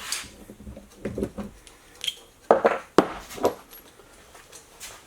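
Metal tools and engine parts clinking and clanking as they are handled, about half a dozen separate sharp knocks.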